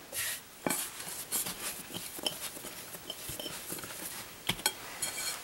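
A hand brushing flour across a marble board, then soft dough tipped out of a bowl onto it: scattered light rubbing and taps, with a few sharper clicks about four and a half seconds in.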